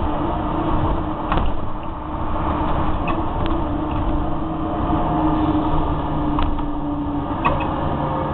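Scania K93CRB bus's nine-litre six-cylinder diesel engine running steadily as the bus drives along, heard from inside the passenger saloon over a constant rumble. A few short sharp clicks and rattles come through now and then.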